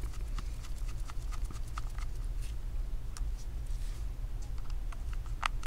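Faint, irregular ticks and clicks of a precision screwdriver turning out the small pentalobe screws on the bottom edge of an iPhone 8, with a sharper click near the end, over a steady low hum.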